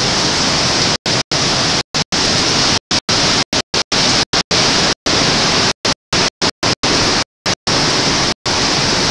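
Hurricane wind and rain making a steady hiss on a Hi-8 camcorder's microphone, the sound dropping out to silence in brief gaps many times.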